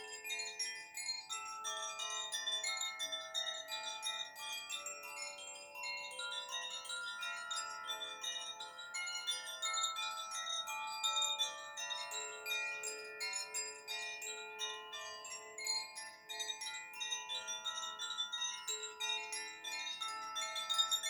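Koshi chimes rung continuously, a dense mix of many overlapping, sustained ringing notes with new strikes all through and no pause.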